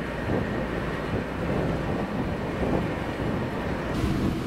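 Low steady rumble of a moored car ferry's engines running at the pier, with wind buffeting the microphone.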